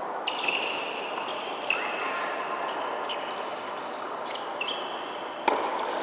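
Tennis balls struck by rackets and bouncing on an indoor hard court during a rally: several sharp pops, each with a brief ringing ping, the loudest near the end, over a steady hum of hall noise.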